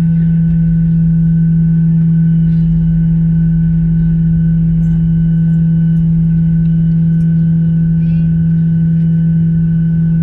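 Boeing 737-800's CFM56 turbofan engines running at idle after start, heard from inside the cabin: a loud, steady low drone with several fainter steady higher tones.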